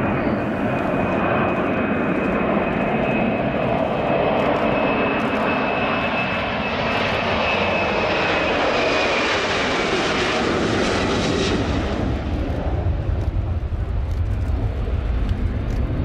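Boeing P-8A Poseidon's twin CFM56-7B turbofans at takeoff thrust on the takeoff roll: a loud, steady jet roar carrying a high whine that fades out about ten seconds in. The hiss is brightest as the jet passes, then gives way to a deep rumble as it climbs away.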